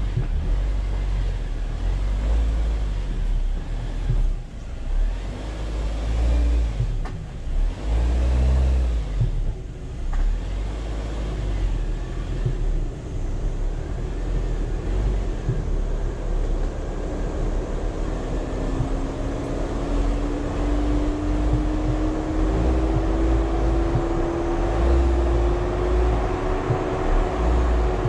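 Jeep Wrangler JL driving a rough off-road trail: engine running over a low rumble with uneven thumps, the engine note climbing slowly through the second half.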